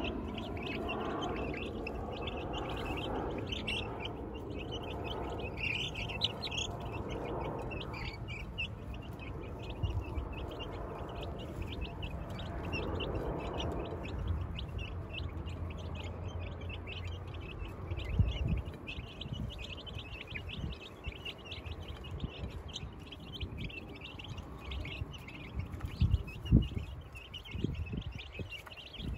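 A flock of two- to three-week-old chicks peeping continuously, many short high chirps overlapping. A few low thumps come about two-thirds of the way through and again near the end.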